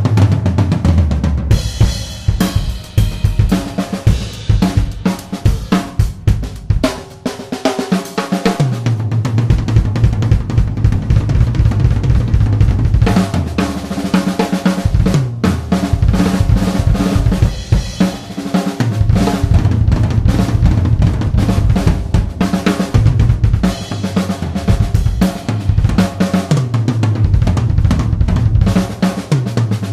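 Acoustic drum kit played continuously: fast snare and tom fills over the bass drum, with cymbal and hi-hat strikes. The toms ring out with a sustained low boom after the hits.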